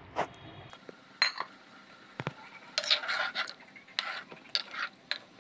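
A steel bowl clinks against a curry pot as fish pieces are tipped into the curry, and then a spoon scrapes around the pot as it is stirred. There are a few sharp clinks, then repeated scraping in the second half.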